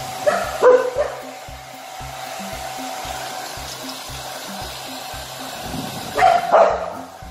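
Hair dryer running steadily while a wet Welsh corgi being dried lets out two short vocal outbursts, one near the start and one near the end.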